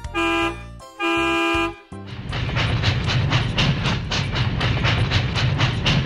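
A cartoon train sound effect: a train toots twice, the second toot longer, then runs on with a steady, rhythmic chugging.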